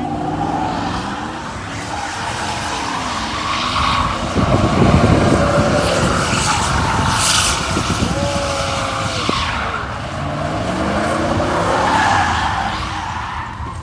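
Pickup truck doing donuts: the engine revs up and down under load while the rear tires squeal and skid on the asphalt. A brief steady tone sounds for about a second roughly two-thirds of the way through.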